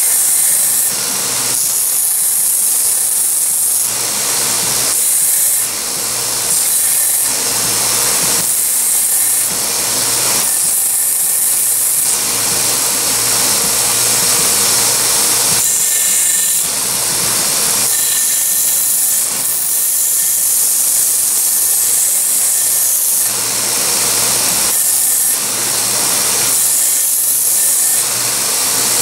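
Small bench belt grinder running, its sanding belt grinding a neck knife's epoxied handle. The grinding hiss swells and drops back every second or two as the knife is pressed onto the belt and lifted off, over the motor's steady hum.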